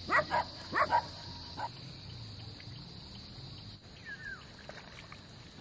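About four short, loud animal calls in the first second, each sweeping up in pitch, over a steady high insect drone that stops near the middle. A faint falling bird chirp comes about four seconds in.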